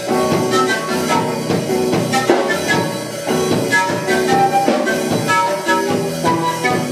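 A live band playing an instrumental piece: an electric guitar and a small hand-held wind instrument played into a microphone, over a steady percussive beat.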